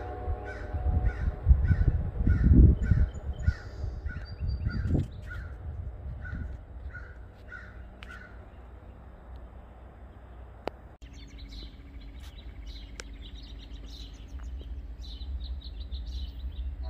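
A crow cawing in a rapid string, about two caws a second, for roughly the first eight seconds, over bursts of low rumble. Smaller birds chirp faintly in the second half.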